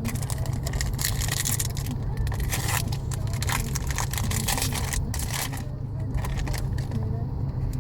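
A foil Pokémon TCG booster pack crinkling and tearing open by hand, in many quick irregular crackles, over a steady low rumble.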